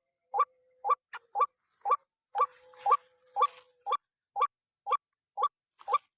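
White-breasted waterhen (ruak-ruak) calling: a monotonous series of short, squeaky rising notes repeated about twice a second, with a brief rustle about two and a half seconds in.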